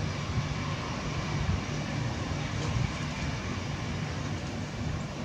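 Boeing 787-8 jet engines at takeoff thrust during the takeoff roll: a steady low rumble with a hiss over it.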